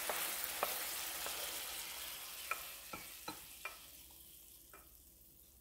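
Onions in a thick, reducing balsamic glaze sizzling in a hot ceramic pan as a wooden spoon stirs and scrapes. The sizzle fades away steadily, with a few sharp taps of the spoon against the pan.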